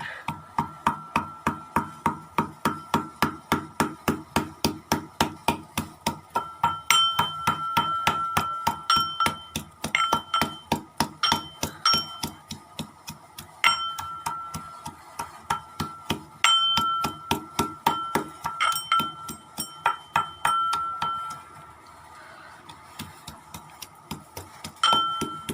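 Ginger being pounded in a mortar and pestle: a fast run of sharp strikes, about three a second, each leaving a ringing note. There is a pause a few seconds before the end, then the pounding starts again.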